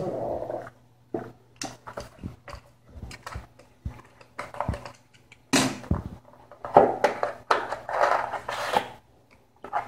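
SSD retail packaging being opened by hand: irregular crinkling, rustling and scraping of cardboard and plastic, busiest from the middle to near the end.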